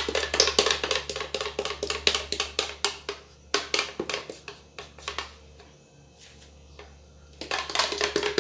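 Plastic bag crinkling in rapid crackles as it is squeezed and handled. It comes in three spells with short quiet gaps between.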